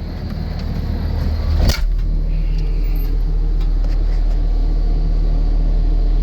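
New Holland C245 track skid steer's diesel engine running steadily. About two seconds in there is a single sharp knock, after which the engine's hum settles into a lower, steadier and slightly louder tone.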